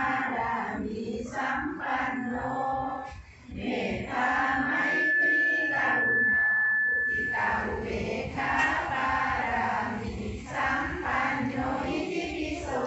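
A group chanting Buddhist prayers together in unison. Midway a thin, steady high tone sounds over the voices for about three and a half seconds.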